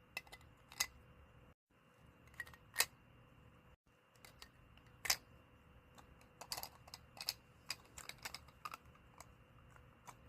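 Irregular small plastic clicks and taps, thicker in the second half: tiny Funko Bitty Pop figures being set onto their plastic display shelf.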